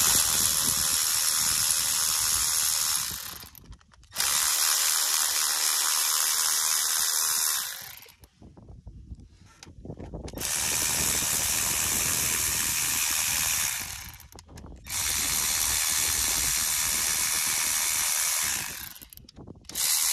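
Power ratchet spinning out the valve-cover bolts on a Cummins 6.7 diesel engine. It runs in steady bursts of about three to four seconds with short pauses between them: four full runs, and a fifth starting near the end.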